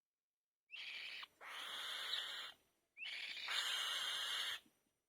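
Nestling bird's harsh, hissing begging screeches, twice, each a short rising note run into a longer rasping screech.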